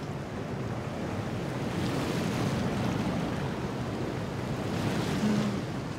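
Choppy sea waves washing, with wind blowing, swelling a little and easing over a few seconds.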